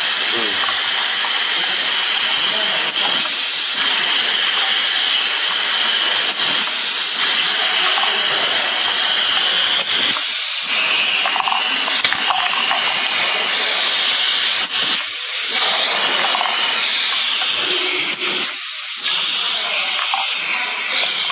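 Steady loud hiss with a few faint knocks and brief dips in its lower part, heard around a pneumatic benchtop bottle-labeling machine at work.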